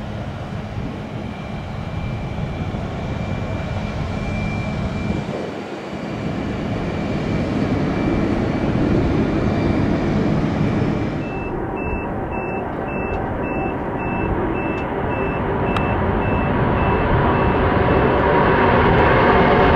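Airbus A330 jet engines running with a steady high whine. After a cut about halfway through, a vehicle's reversing beeper sounds about twice a second over the engine noise, which grows louder toward the end.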